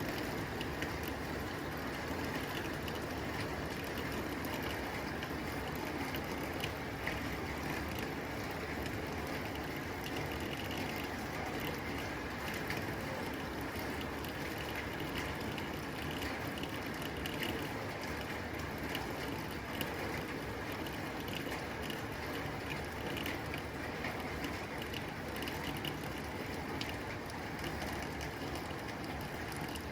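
Steady rain falling on a tin roof: a dense, even patter of drops ticking on the metal.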